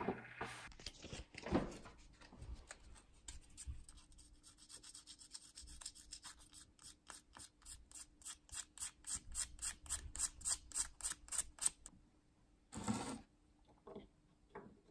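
Sandpaper rubbed by hand over a small piece in quick back-and-forth strokes, speeding up to about four or five strokes a second, then stopping. A short knock follows near the end.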